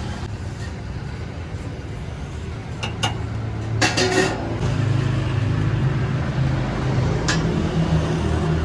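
Road traffic beside the stall: a motor vehicle's engine running close by with a steady low hum that grows a little louder about halfway through, and a few sharp clicks in between.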